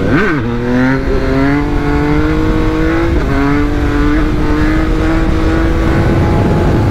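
Motorcycle engine accelerating hard. A quick rev at the start, then its pitch climbs steadily, dipping briefly about three seconds in as it shifts up a gear.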